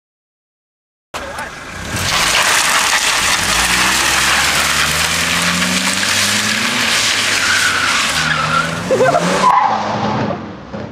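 Loud squeal of car tyres in one long skid on asphalt, with the engine revving underneath, as a car slides around. It starts suddenly about a second in and dies away near the end.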